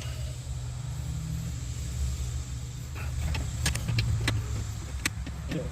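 Small engine of an AGT QK18 mini excavator running steadily, with a few short metallic clicks in the second half.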